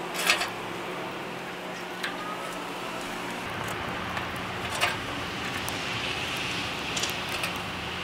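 Small twig fire burning in a fire-brick rocket stove, a steady rush with a few sharp crackles and snaps as sticks are pushed into the feed opening. The draft is just beginning to pull through the short riser, and the low rush grows a little fuller about halfway through.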